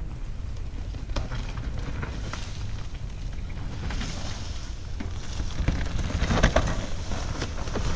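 Mountain bikes riding a loose dirt trail: wind buffeting the microphone, tyres crunching over dry leaf litter and dirt, and the bikes clicking and rattling over bumps. The rattling is loudest about six to seven seconds in, as a rider passes close.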